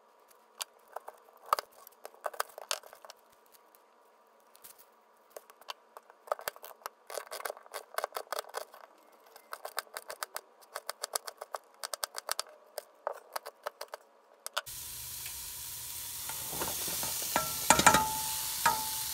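A chef's knife chopping an onion on a plastic cutting board: quick runs of sharp knocks. About fifteen seconds in, a steady sizzling hiss from a hot pot takes over, and diced onion is scraped off the board into it with a few louder clatters near the end.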